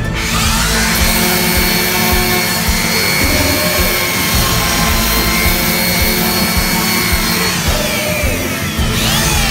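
Handheld electric power tool worked against the steel chassis underside. It spins up with a rising whine at the start, runs with a steady high whine and a harsh scraping noise, and winds down near the end. Background music plays underneath.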